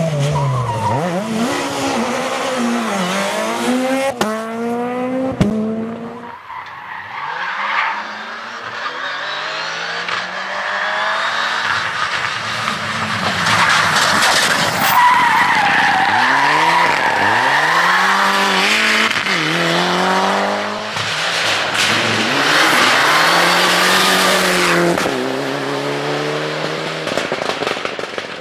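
Rally cars driven flat out, engines revving up through gear after gear as they pass, with tyre squeal and sliding through the corners.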